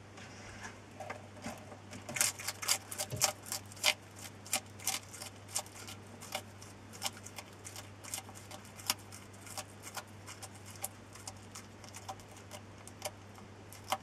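Bearded dragon chewing a dubia roach: crisp crunches of the roach's shell, quick and loudest in the first few seconds, then slowing to about two a second. A faint steady low hum runs underneath.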